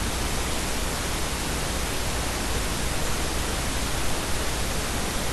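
Steady, even hiss of background noise with nothing else in it.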